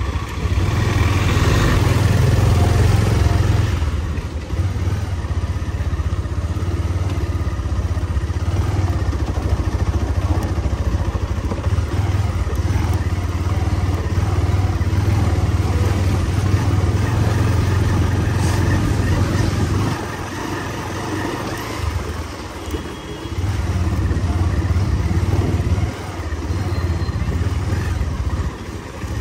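Benelli 302S motorcycle's 300 cc parallel-twin engine running as the bike is ridden at street speed, the sound dropping in level briefly a few times in the last third.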